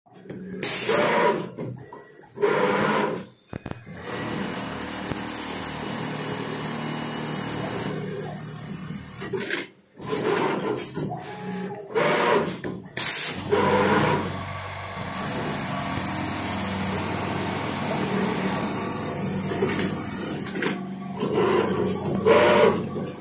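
STN8000A automatic pocket-setting sewing machine running steadily as its lockstitch head sews a pocket onto a fabric panel. Several short, loud bursts break into the run, at the start, around the middle and near the end, as the folding and clamping template moves between sewing cycles.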